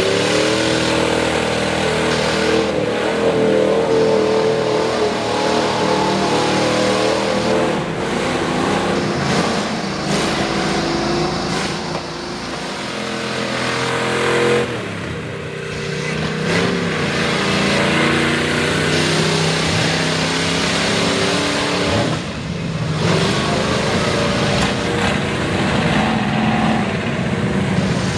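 Chevy square-body mud truck's V8 on open headers, run hard at high revs with the wheels spinning in deep mud while the truck is stuck in the bog. The revs ease off a few times, about halfway through and again near the end, then climb back up.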